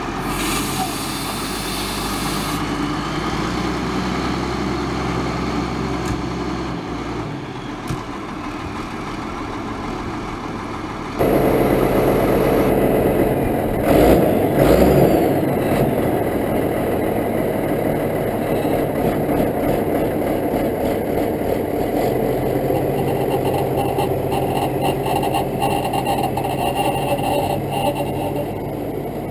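Ford TW25 tractor's six-cylinder diesel engine running steadily as the tractor drives off a low-loader trailer. It is louder from about 11 seconds in, and there are heavy clunks about halfway through as the big tyres roll over the trailer's wooden deck.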